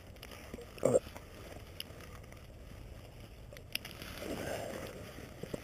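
A dog leash and its metal snap hook being handled at a dog's collar: a few small sharp metal clicks and rustling of leash and jacket. A brief voice sound about a second in is the loudest thing.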